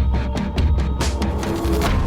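Background music: a driving electronic track with a heavy, steady low beat.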